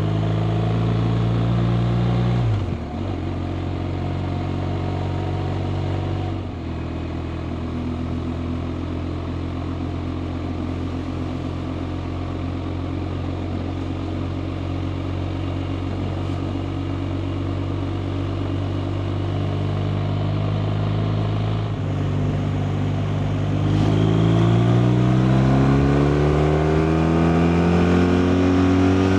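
BMW R 1250 RT's boxer-twin engine heard on the move, with wind noise. The engine note drops about two and a half seconds in and again around six seconds, runs steadily for a long stretch, then rises in pitch under acceleration near the end.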